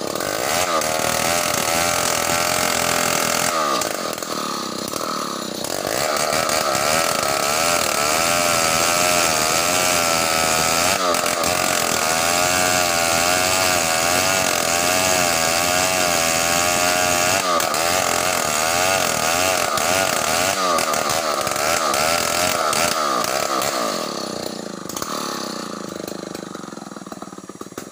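Two-stroke chainsaw running at full throttle while cutting through a large hardwood log, its pitch wavering as the chain bogs and frees under load. It eases off about 24 seconds in and fades near the end.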